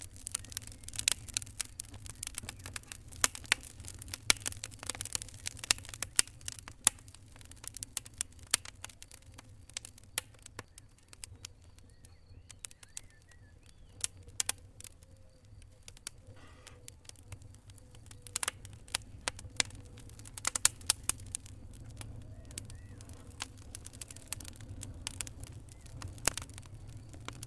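Fire in a fireplace crackling, with irregular sharp pops and snaps over a low steady rumble. The pops thin out for a while midway, then pick up again.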